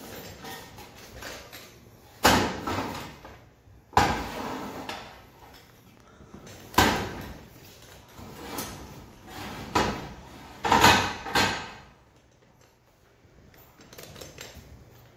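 An aluminum scaffold plank being set onto the mid rail of a steel frame scaffold: a string of sharp metal clanks and knocks as it is lowered, shifted and seated, the loudest close together near the end.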